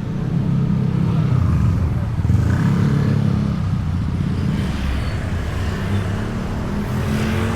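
Honda Beat scooter's single-cylinder four-stroke engine running under way, a steady low hum.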